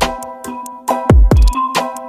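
Electronic background music: a synth melody over sharp drum hits, with deep bass notes that slide down in pitch about a second in.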